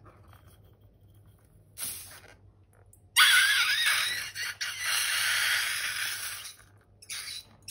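Air and slime squeezed out through a rubber balloon's neck: a hissing, wavering squeal lasting about three seconds, after a short scratchy sound near two seconds in.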